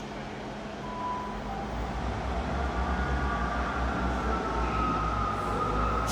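Diesel train at the platform, its low engine rumble building as it moves, with a thin high squeal drifting slowly in pitch over it. A sudden hiss sets in right at the end.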